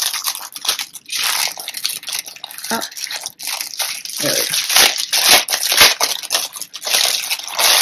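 Thin clear plastic packaging bag crinkling and rustling as hands pull it open and slide out the cloth inside, in an irregular run of crackles.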